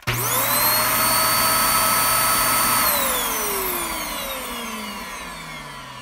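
Vacuum cleaner switched on: its motor spins up in a fraction of a second to a steady high whine. About three seconds in it is switched off, and the whine falls in pitch and fades as the motor winds down.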